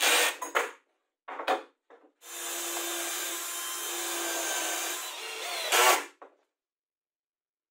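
Cordless drills working plywood. First come short bursts of driving screws, then a steady run of about three seconds drilling a hole, then one more short burst of a screw being driven home.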